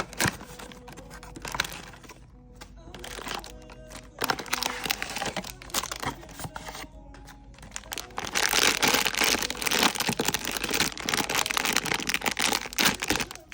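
Blind-box packaging being crinkled and torn open by hand: dense crackling and rustling, much louder from about eight seconds in, over quiet background music.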